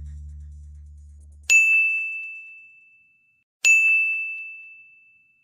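Last held notes of background music dying away, then two bright bell-like dings about two seconds apart, each ringing out and fading over more than a second.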